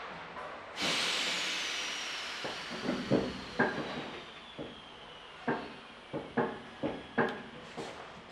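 Sudden hiss of compressed air aboard the Ezh3 metro car, with a whistle that falls in pitch and fades over several seconds. It is followed by about ten irregular knocks and clunks.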